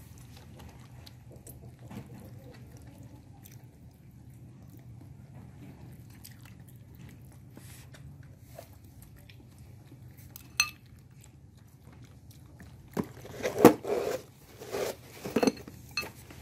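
Baby monkeys eating by hand: faint chewing and small clicks over a low steady hum. About thirteen seconds in, a run of louder knocks and rustles starts.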